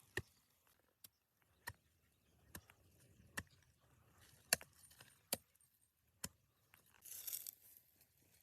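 Sharp metallic clinks and taps, about eight of them at irregular intervals, with a short scraping rustle near the end, as of metal parts or tools being handled.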